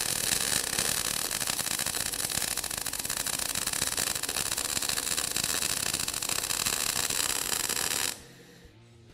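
MIG welding arc from an Eastwood MIG welder laying a bead on a T-joint of 3/16-inch cold-rolled steel plate: a steady, dense crackling that stops abruptly about eight seconds in when the arc is broken.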